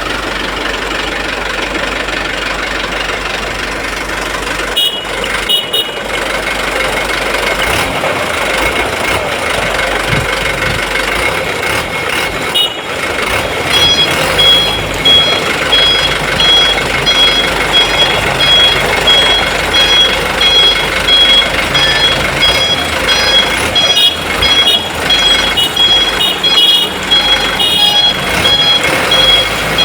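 Toy trucks running with a steady whirring, loud noise. From about halfway in, a high electronic beeping repeats on and off, like a truck's reversing alarm.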